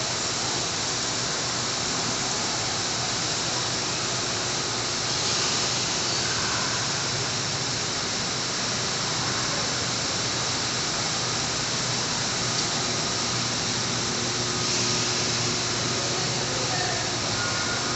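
Steady rushing noise of an indoor exhibit hall, even and unbroken, with a faint low hum beneath it.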